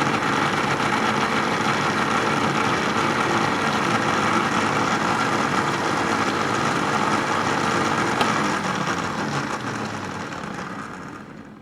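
Electric blender motor running steadily at high speed, blending egg, lemon juice and oil into mayonnaise; it winds down and stops near the end.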